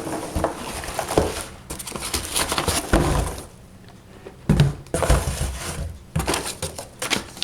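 Cardboard box and packing material being handled during unpacking: scratchy rustling with several sharp knocks, going quieter for about a second midway.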